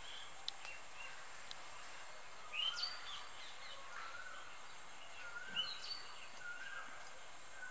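Birds chirping in the background: short repeated calls, several sliding up and then holding, over a steady high-pitched hiss, with a couple of faint clicks.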